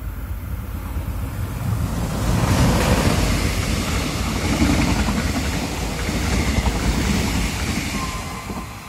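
Mugunghwa-ho passenger train passing close by on the rails. It grows loud about two and a half seconds in as the head of the train goes by, stays loud while the coaches run past, and fades near the end.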